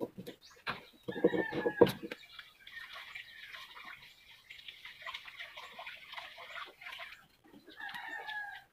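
Chickens calling: a loud crow-like call about a second in and another two-toned call near the end, with a steady high hiss in between.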